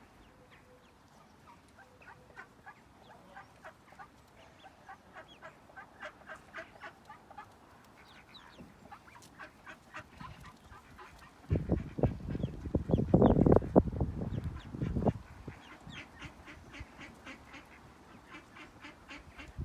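Ducklings peeping in quick runs of short high chirps, with an adult duck quacking loudly for a few seconds about halfway through.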